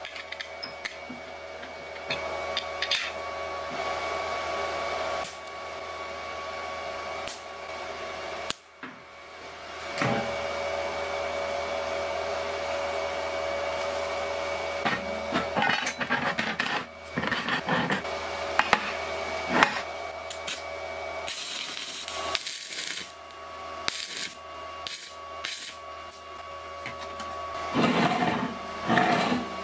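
Steel parts knocking and clinking against a steel workbench as they are handled, over a steady workshop hum, with a brief hiss about two-thirds through and a run of louder knocks near the end.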